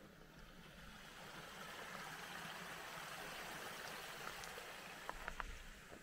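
Shallow, low-water creek running over stones, its rushing swelling over the first seconds and easing off near the end, with a few sharp clicks about five seconds in.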